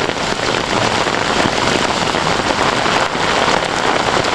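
Hailstones pelting down with heavy rain: a dense, continuous clatter of countless hits on hard surfaces.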